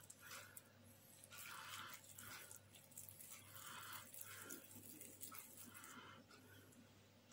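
Near silence: faint, soft, irregular handling sounds of hands pressing minced chicken into raw mushroom caps, over a low steady hum.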